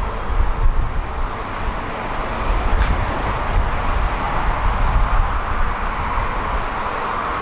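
Steady road traffic noise: a constant hiss of passing vehicles over a low rumble, with no single event standing out.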